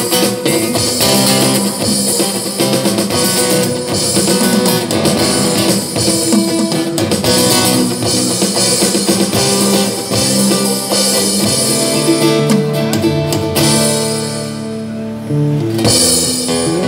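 Live band music: an acoustic guitar strummed over keyboard chords, with a steady beat.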